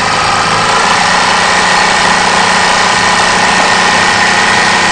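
Bernina 950 industrial zigzag sewing machine running steadily, stitching a decorative zigzag design with a small stitch setting. The hum stays level throughout.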